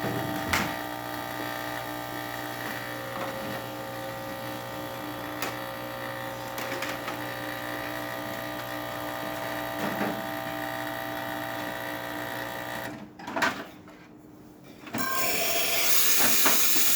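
Quick Mill Andreja Premium espresso machine's vibration pump buzzing steadily, then shutting off about 13 seconds in. After a short quiet gap with a click, the steam wand is opened and steam hisses near the end.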